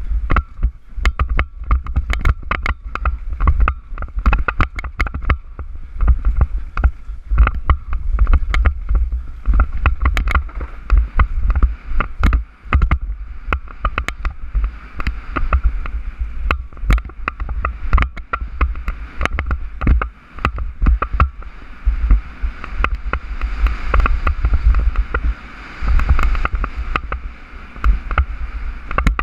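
Mountain bike racing down a rough dirt trail, heard from a helmet camera: wind buffets the microphone in a constant low rumble, over a continuous rattle of the bike and many sharp knocks as the wheels hit bumps and roots. A brighter hiss rises in the last few seconds.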